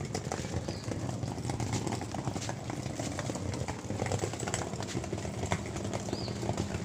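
Small hard wheels of a trolley suitcase rolling over a stone-paved path, a continuous clatter of small clicks over a low rumble.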